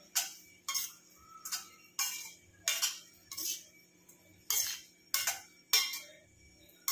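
A spatula stirring thick oats upma in a stainless steel kadhai, about a dozen short scrapes against the pan, roughly one every half second.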